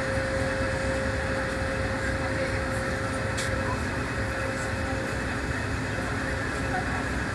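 Steady engine drone and rushing noise of a river sightseeing boat under way, with a faint steady hum that fades out about halfway through.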